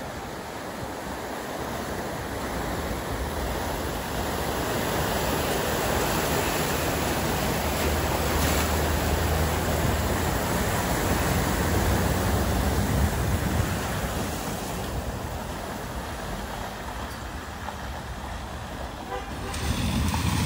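A Land Rover Discovery wading slowly through deep floodwater: its engine running low and steady under the continuous rush and slosh of water pushed along its sides, growing louder as it comes past. Near the end, a louder rush of spray as another car drives fast into the flood.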